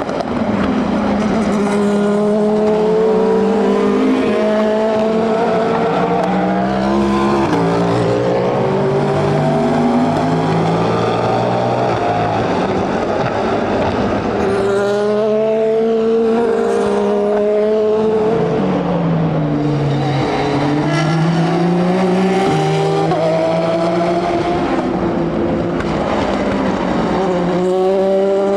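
Several race cars running at racing speed, engines overlapping as they accelerate and pass, pitch climbing in steps through upshifts. About 19 seconds in, one engine's pitch dips and then climbs again.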